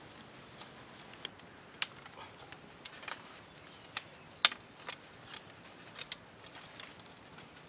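Bamboo slats and poles clacking and tapping at irregular moments as they are handled and tied onto a bamboo frame, with the sharpest knock about four and a half seconds in.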